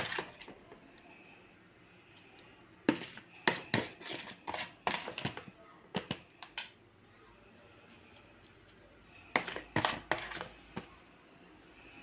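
Metal spoon scraping and clinking against a bowl while it scoops up leftover rice-and-tomato filling. The clinks come in two bursts of quick strokes, the second near the end.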